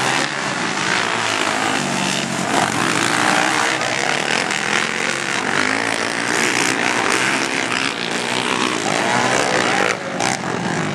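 Several racing ATV engines revving, their pitch rising and falling as the riders accelerate and back off.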